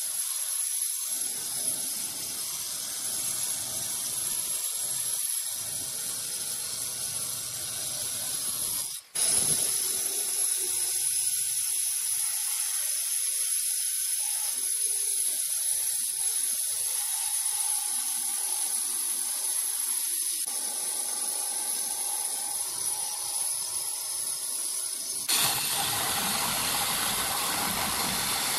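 Handheld electric stone cutter with a diamond blade running steadily as it cuts a wet granite slab, giving a high hissing whine. It breaks off briefly about nine seconds in, and near the end gives way to a louder, fuller grinding noise from a small angle grinder on the slab.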